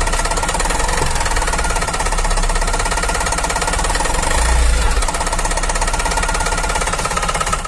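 Tata Magic Express common-rail diesel engine idling steadily, heard from the cab, swelling slightly for a moment about halfway through. The engine is running with almost no oil on the dipstick, its oil having ended up in the coolant reservoir.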